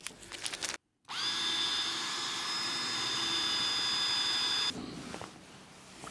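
Cordless drill starting about a second in, its whine rising briefly and then holding steady for about three and a half seconds before it stops: a cobalt bit drilling out a stainless steel rivet in the tank's cladding.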